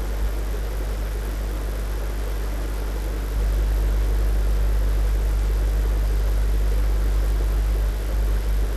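Steady low hum over a background hiss, a little louder from about three and a half seconds in, with no distinct knocks or tool strikes.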